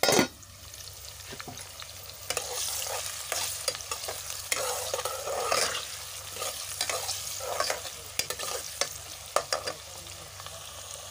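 Chopped onions sizzling in hot oil in a steel pot, stirred with a steel ladle that scrapes and clicks against the pot. A sharp knock comes right at the start.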